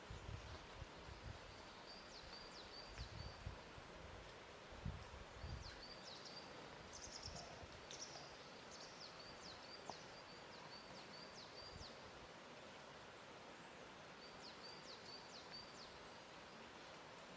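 Faint lake-shore ambience: a soft steady hiss with low, gentle water lapping now and then, and a small bird giving short runs of quick high chirps several times.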